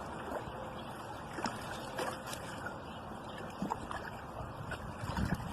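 Steady rush of flowing river water, with a few faint ticks and a brief low rumble near the end.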